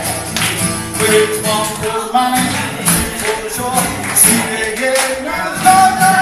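Live band playing an upbeat song: acoustic guitars strumming under a man's and a woman's singing, over a steady beat of sharp percussive hits.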